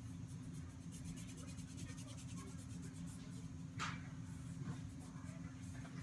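Faint scratchy rubbing of a wax strip being pressed and smoothed onto the skin of the chin, with one short sharp noise about four seconds in, over a steady low hum.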